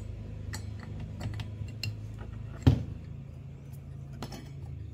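Allen key clinking and scraping against the blade bolt and arbor of a mini circular saw as the bolt is tightened: scattered small metal clicks, one louder about two and a half seconds in, over a steady low background hum.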